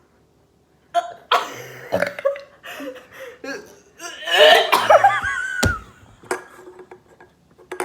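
A person straining to force up a burp after chugging Sprite, giving a run of coughs and burps from about a second in, loudest around four to five seconds in, with a sharp click just before six seconds in.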